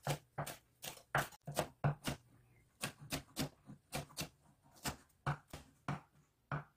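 Kitchen knife chopping green bell pepper on a wooden cutting board: short, sharp knocks of the blade hitting the board, about two to three a second in an uneven rhythm.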